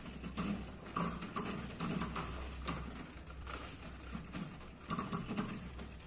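An IFB Ultra washing machine's brushed drive motor runs with a low hum and irregular crackling clicks, several a second. The motor is sparking and jerking, and is judged to need replacing.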